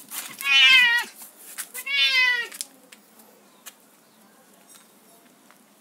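Domestic cat meowing twice, two long meows with a wavering pitch in the first few seconds, then only a few faint light clicks.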